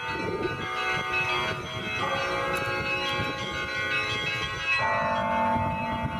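Russian Orthodox monastery bells ringing: several bells of different pitch struck in quick succession, their tones ringing on and overlapping, with fresh strikes about two seconds in and again near the end.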